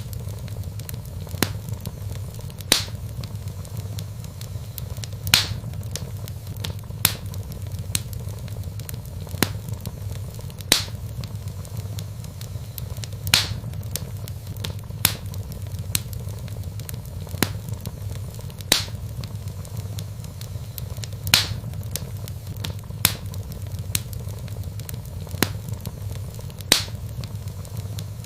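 Log fire burning in a fireplace: a steady low rumble with sharp, irregular crackles and pops every second or two.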